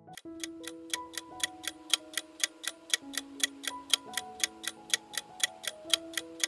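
Countdown-timer sound effect: a clock ticking evenly, about four ticks a second, over soft held notes that change pitch now and then.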